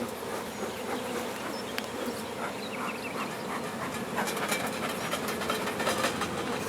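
A swarm of Italian honey bees buzzing steadily in a dense cloud around the hive box, a low continuous hum of many wings with a few faint clicks.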